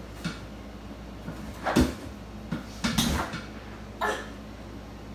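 Knocks and thuds from a freestanding home gymnastics bar and its folding mats as a child swings on the bar. There are three main knocks, about a second apart, and the first is the loudest.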